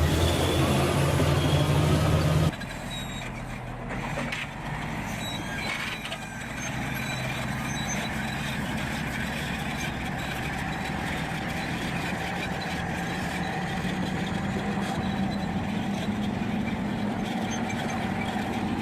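Heavy truck engines running: a loud, deep engine for the first couple of seconds, then an abrupt change to a quieter, steady engine running.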